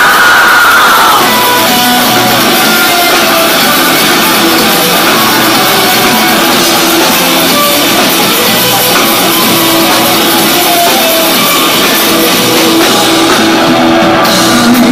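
Live rock band playing electric guitar, bass guitar and drum kit at full volume; a held high note dies away about a second in.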